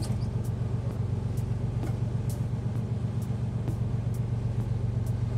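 A fishing boat's inboard engine running steadily under way, a deep even drone, with faint sharp clicks about twice a second.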